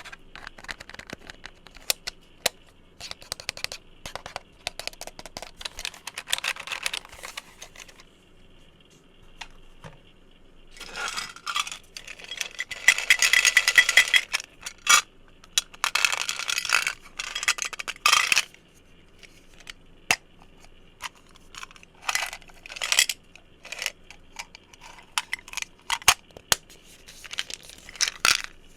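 Fingertips and fingernails tapping and handling small objects: sharp clicks at first, then dense flurries of rapid tapping in the middle, then short spaced runs of taps.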